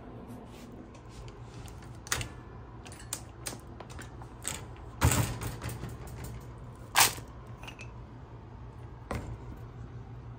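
Irregular clicks and knocks of a wire guinea pig cage and its contents being handled at feeding time, the loudest about five and seven seconds in, over a faint steady low hum.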